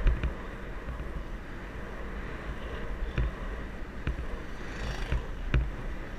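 Steady low rumble of wind on the microphone and road noise from a moving vehicle on a paved road, with a few sharp knocks.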